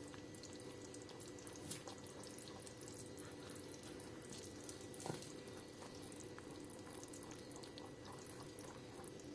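Faint wet stirring of egg, ghee and sugar batter with a silicone spatula in a glass bowl, with soft taps about two seconds in and again about five seconds in, over a steady low hum.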